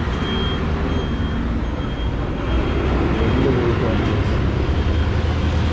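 A motor vehicle running on the road, a steady low rumble mixed with road noise, with faint voices in the background.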